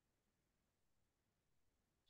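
Near silence: a pause in a video-call presentation with only faint background hiss.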